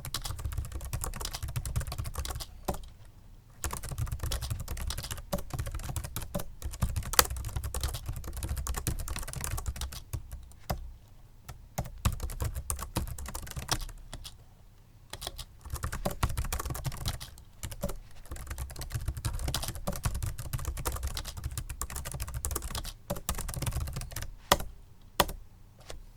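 Continuous typing on a Microsoft Sculpt Ergonomic membrane keyboard: quick runs of soft key presses broken by short pauses, with a few louder key strikes near the middle and the end.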